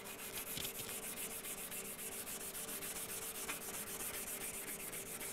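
A solvent-wetted abrasive scuff pad scrubs back and forth over a cold-rolled steel strip in quick, even strokes, making a steady rasping rub. It is cleaning mill oil off the metal before TIG welding.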